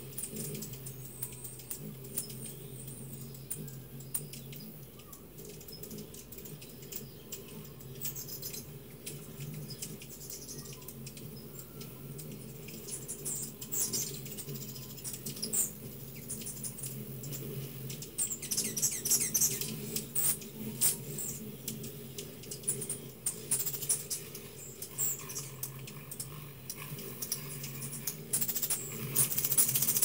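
Hummingbirds feeding and jostling at a crowd of feeders: a run of quick dry chip notes and ticks, with bursts of high squeaky chatter in the second half. A steady low hum runs underneath.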